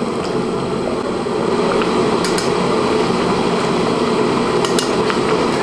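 Egg-and-potato curry simmering in an aluminium kadai over the stove, a steady bubbling hiss. A metal ladle clicks lightly against the pan a couple of times, about two and nearly five seconds in.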